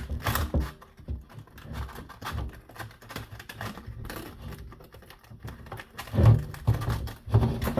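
Skateboard griptape being peeled off the deck by hand without heat: irregular crackling and tearing as the stubborn adhesive lets go, with louder bursts and handling thumps near the end.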